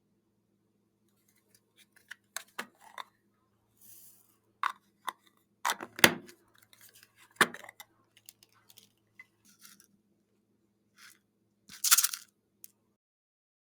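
Bead-filled slime being squished and pulled by hand: scattered clicks, crackles and pops, the loudest about six and seven and a half seconds in and a longer crackle near the end, over a faint steady hum.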